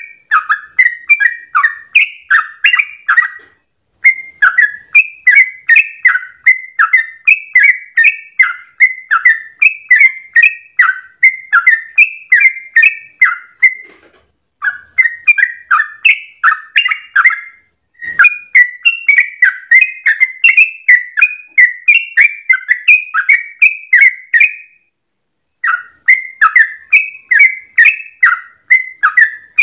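Yellow-vented bulbul (trucukan) singing its fast, continuous 'ropel' song: a quick run of short, bubbly chirping notes, about three or four a second, breaking off briefly four times.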